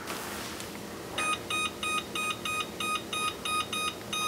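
Electric oven's control panel beeping: a quick run of about ten short, identical beeps, about three a second, starting about a second in, as buttons are pressed to key in the 25-minute bake time.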